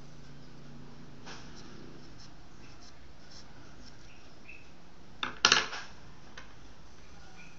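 Faint scratching of a charcoal pencil on paper over a steady hiss, broken about five seconds in by a brief, loud clatter of a few sharp knocks.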